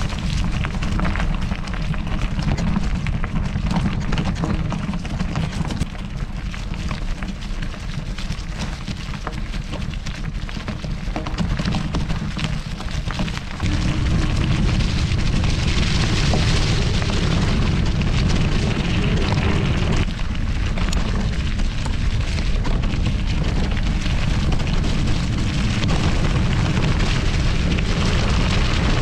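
Wind buffeting a chest-mounted action camera's microphone, with the clatter of mountain bike tyres rolling over gravel and dry leaves on a forest track. The low wind rumble gets louder about halfway through.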